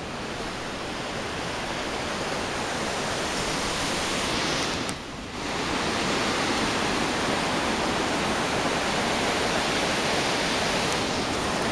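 The Langtang Khola, a mountain river, rushing: a steady wash of water noise that grows louder over the first half, dipping briefly about five seconds in.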